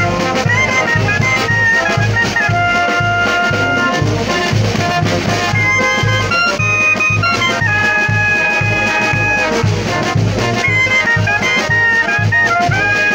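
Brass band (banda) playing live: clarinet and saxophone carry the melody in long held notes over sousaphones and other brass, with a steady pulsing bass beat underneath.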